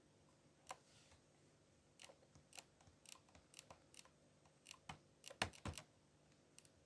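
Faint, irregular clicks and taps of a finger pressing on an HP 250 G7 laptop touchpad, in scattered clusters. The touchpad's right button is stuck down.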